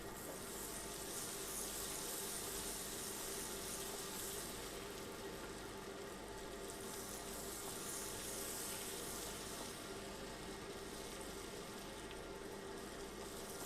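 Spiced root vegetables sizzling steadily in foaming butter in a frying pan, an even hiss with a faint steady hum beneath it.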